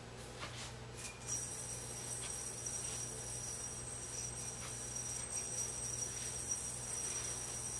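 General Yo Torrent II yo-yo thrown about a second in, then spinning on its string with a steady high-pitched whine from its bearing. A few light clicks and scrapes of string and hand come through now and then.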